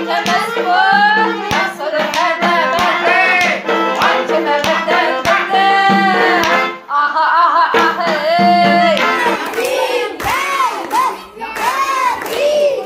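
A song with singing over instrumental accompaniment and a steady beat of sharp strokes about twice a second; the music dips briefly about halfway through, then the singing carries on in repeated rising-and-falling phrases.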